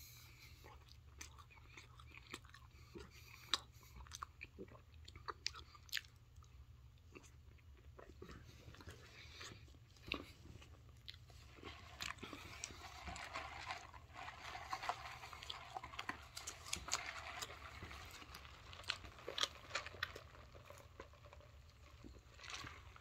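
Close-up chewing and biting of a Taco Bell Crunchwrap Supreme, its crisp tostada shell crunching between the teeth in scattered sharp crunches. The sound grows thicker for a few seconds about halfway through.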